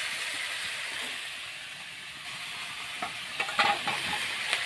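Oil sizzling steadily in a wok as chunks of food fry, with a few short clicks of stirring from about three seconds in.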